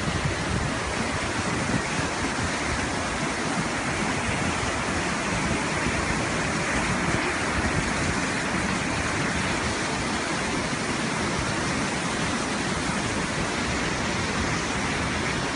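Muddy floodwater of a wadi in spate rushing past in a steady, unbroken torrent.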